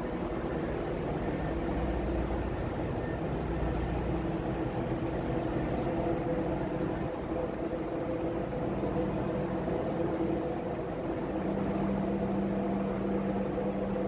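Ship's engine-room machinery running: a steady drone with several hum tones, and a deeper hum that comes in about eleven seconds in.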